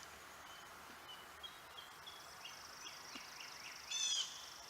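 Wild birds calling: a run of short, high chirps, then a louder quick series of down-slurred notes about four seconds in, over a steady high insect drone.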